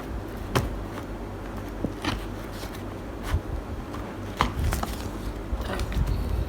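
Dessert containers and packaging being handled on a table: a few sharp clicks and light knocks a second or two apart, with soft rustling and thuds between them.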